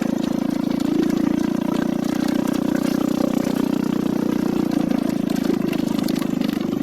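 Small motorcycle engine running steadily at an even pitch, like an idle, with no revving.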